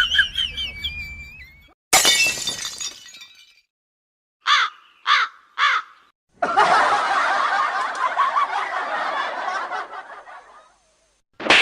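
A string of separate short comedy sound effects with silences between them: a sudden crash like something breaking, then three short pitched calls, then a long noisy chatter of about four seconds, and a short burst near the end.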